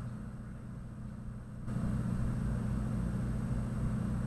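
Steady low hum with a faint pulsing underneath and a light hiss, the hiss getting a little louder about a second and a half in; no speech.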